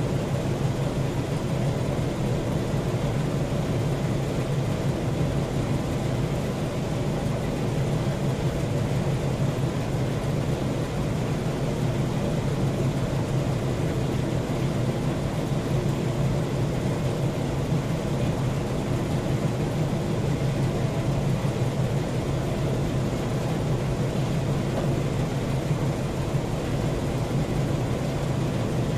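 Steady low drone of running machinery, unchanging in pitch and level.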